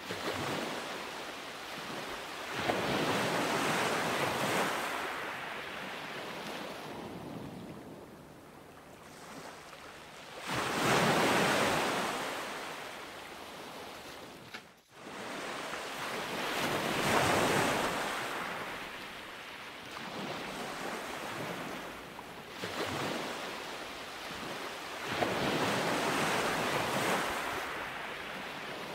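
Ocean waves washing in and receding, a swell every six to eight seconds, with a brief break about halfway through.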